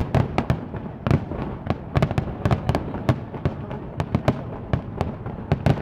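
Star mine fireworks barrage: aerial shells bursting in rapid succession, several sharp bangs a second over a continuous low rumble.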